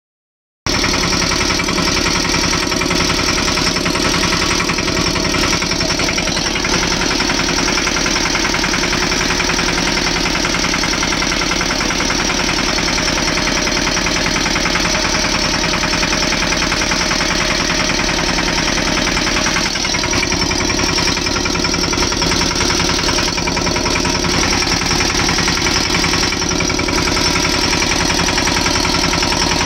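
Mahindra Yuvraj 215 tractor's single-cylinder diesel engine running steadily with a rapid, even firing beat, under load as it pulls an inter-row cultivator through the soil.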